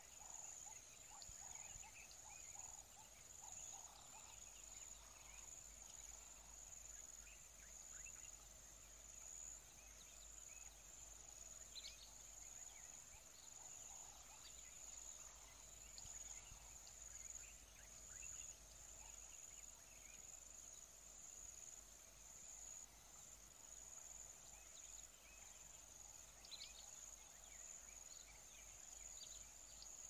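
Faint forest ambience: a steady high-pitched insect drone, with scattered faint, short bird calls.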